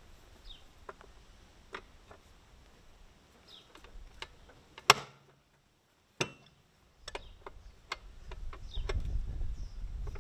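Scattered metallic clicks and taps of a wrench working the eccentrics on an Allis-Chalmers CA's power-shift rear wheel, being loosened to move the wheel, with one sharp clack about five seconds in. A low rumble rises near the end.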